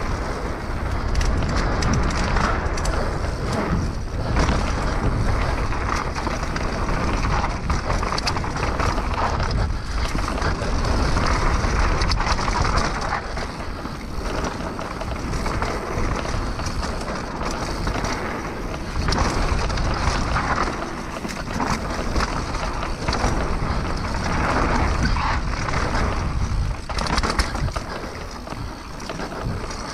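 Mountain bike riding down a dirt singletrack, heard from the bike or rider: tyres rolling and crunching over dirt and dry leaves, with constant small rattles and clicks from the bike over bumps and wind noise on the microphone.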